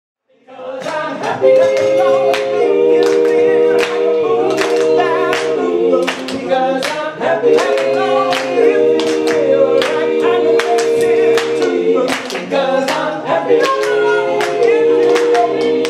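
Male a cappella group singing in close harmony, the voices holding chords, with hand claps keeping the beat. It fades in at the start.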